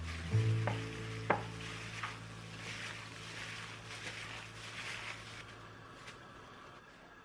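Food sizzling in a pan while it is stirred, with a few sharp utensil clicks in the first couple of seconds. The sizzle fades toward the end.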